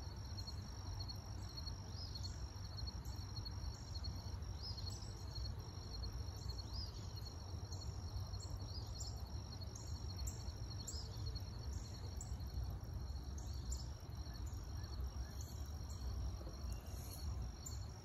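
Steady high-pitched insect trilling, with faint short high bird notes repeating every couple of seconds: an eastern phoebe calling.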